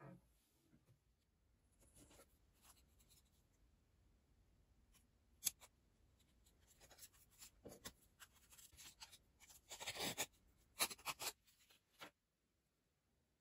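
Paper craft band being handled and split lengthwise into a narrow three-strand strip: faint rustling and scraping of the paper strands, a sharp tick about five and a half seconds in, and a denser tearing rasp near the end as a strand is pulled apart.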